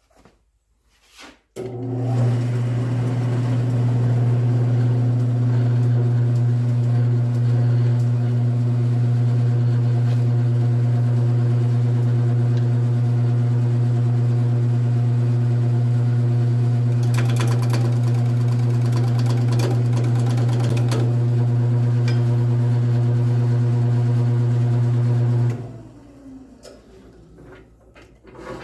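Electric wood lathe switched on, its motor humming steadily as it spins a poplar slab bowl blank, then switched off about 25 seconds in. A stretch of rapid scratchy clicking comes through partway along.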